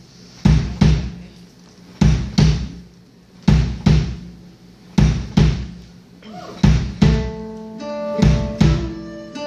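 Live band opening a song: a drum kit beats a slow double beat on the bass drum, a pair of hits about every second and a half, like a heartbeat. From about seven seconds in, an acoustic guitar joins with single ringing picked notes.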